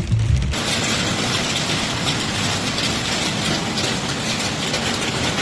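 Hail and rain pelting down hard: a dense, steady clatter that starts abruptly about half a second in.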